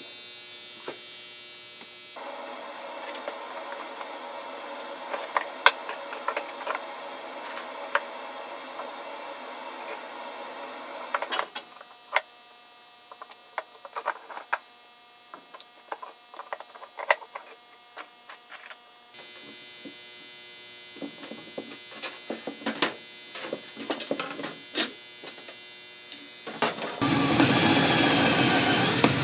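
Workshop work sounds in several short cuts: a steady hum with scattered clicks and knocks. About two seconds before the end, a power tool starts running loudly and steadily.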